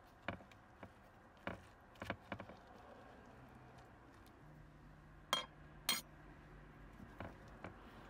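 A spoon scraping and tapping while scooping seeds and pulp out of a vegetable: a scattered series of short scrapes and clicks, with two sharper clinks about five and six seconds in.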